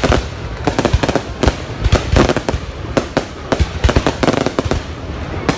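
Fireworks going off in a dense, continuous barrage of bangs and crackles, several a second with no pause.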